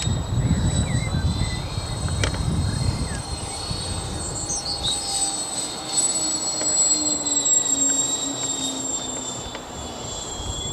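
Radio-controlled B-24 Liberator scale model, about 2 m in wingspan, flying overhead: its motors make a steady high-pitched drone, with a lower tone that slowly falls in pitch in the second half as it passes. A low rumbling noise is strong in the first few seconds and dies away about halfway.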